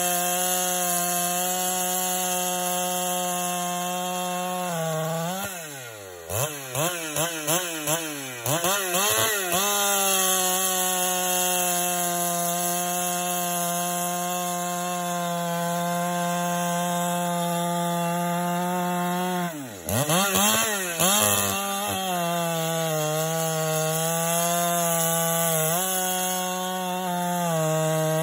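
G395XP chainsaw, a 94cc two-stroke clone of the Husqvarna 395XP, running at high revs. Its pitch sags under load about five seconds in and again near twenty seconds, wavering rapidly up and down for a few seconds after the first drop before it recovers, as the saw works through wood. The engine has piston slap.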